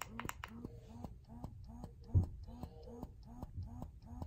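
Freemie Liberty breast pump running with its suction turned up: an even, rapid pulsing of about four strokes a second, each a short rising whir of the motor. A single low thump sounds about two seconds in.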